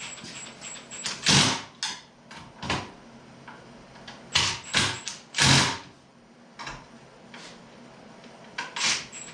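Irregular knocks and clunks, a dozen or so at uneven intervals, the loudest about a second and a half in: parts and tools being handled while stripping a car.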